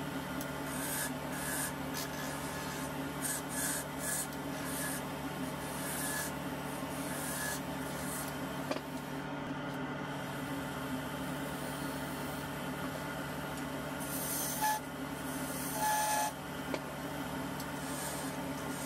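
Wood lathe running with a steady hum while a hand-held turning chisel cuts a small spinning zelkova spindle, giving intermittent scraping, hissing cuts. The loudest cuts come about two-thirds of the way through, with two brief high squeals from the tool on the wood.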